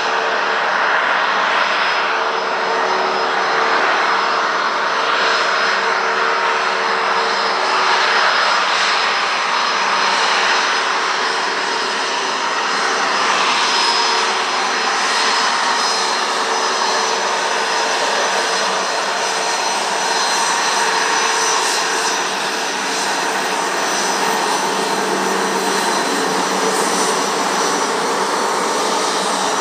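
Bombardier Challenger 604 business jet arriving, its twin General Electric CF34 turbofans running loud and steady: a broad jet roar with a low steady hum and a high fan whine.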